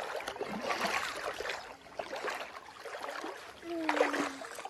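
Shallow sea water splashing and sloshing irregularly as a small child wades through it on foot, then crouches in it. A short held tone sounds briefly near the end.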